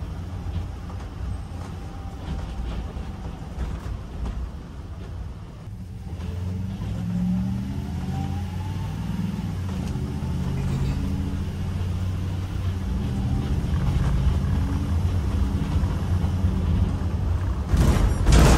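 The V8 engine of a Ford E-series motorhome running, heard from inside the cab with road noise. From about six seconds in it speeds up and its note rises. Near the end there is a brief loud jolt.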